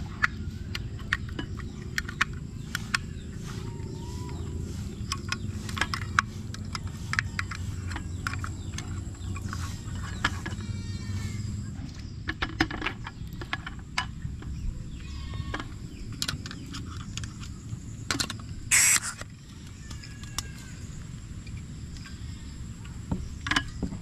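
Forest ambience: a steady high insect drone with chirping insects over a low rumble, broken by scattered sharp clicks and taps. A short, louder burst comes about 19 seconds in.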